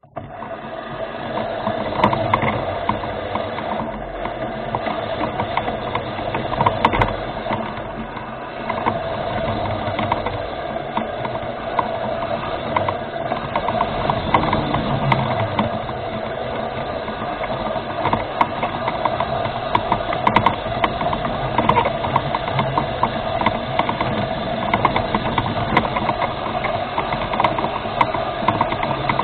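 Electric drive motors and gearboxes of a remote-controlled rover whirring steadily as it drives, with a steady whine and many small clicks and rattles.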